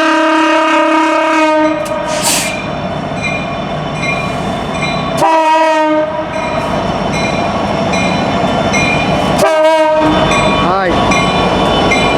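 CN freight locomotive air horn sounding three blasts: a long one at the start, then two shorter ones about five and nine seconds in. Grade-crossing warning bells keep up a steady repeated ding underneath, and the rumble of the approaching train builds.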